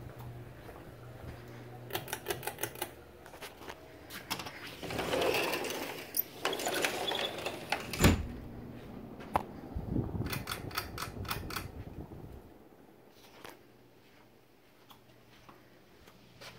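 Low steady hum of a running ceiling fan, broken by bursts of rapid clicking and rattling and one sharp thump about eight seconds in.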